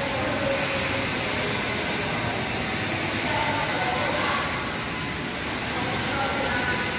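Steady background noise with faint distant voices.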